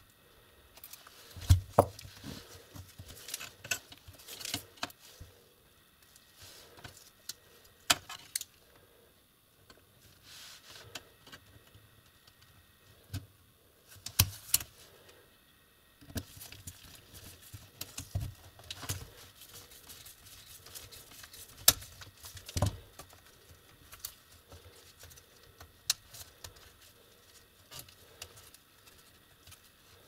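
Small screwdriver and loose metal screws clicking and tapping against a laptop's plastic case and motherboard as screws are taken out and set down. The light clicks and knocks come irregularly, with a handful of sharper ones.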